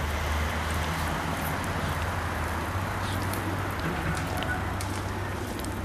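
Steady outdoor hiss and low rumble while walking on a paved path, with a few faint steps or clicks.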